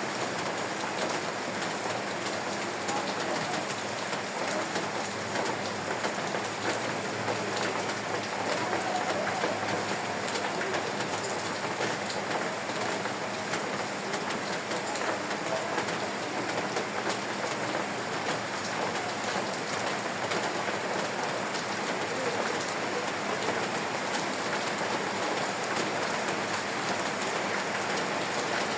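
Steady rain falling: an even, continuous hiss dotted with many small ticks of individual drops.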